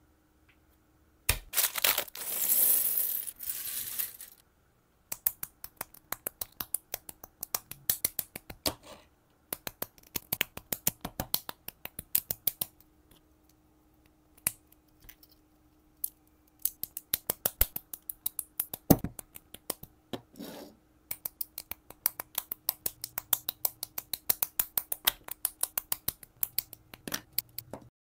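Tiny plastic micro-bricks from a Petit Block kit clicking and clattering as they are handled and pressed together by hand: quick, irregular runs of clicks with short pauses. A rustle of about three seconds comes just after the start.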